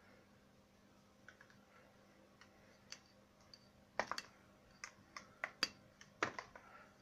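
Hands handling a gypsum plaster Buddha casting: light scattered clicks and taps of fingers and plaster, becoming more frequent and sharper about four seconds in, with a second cluster near the end.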